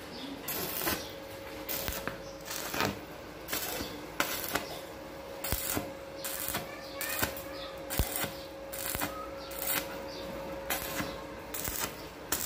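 Stick (arc) welding on a light steel canopy frame: short, irregular bursts of arc crackle, about one or two a second, as the electrode is struck and held briefly on the joints.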